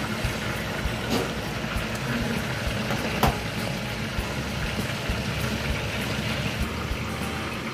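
A pot of rockfish broth at a rolling boil on a gas burner, bubbling steadily. There are a couple of sharp clinks, the loudest about three seconds in, as the glass lid comes off.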